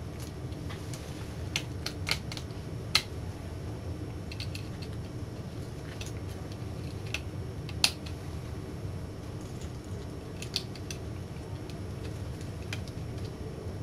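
Scattered small clicks and taps of wire connectors being pushed into sockets and handled on an LCD monitor's circuit boards, over a steady low hum. The sharpest clicks come about three and eight seconds in.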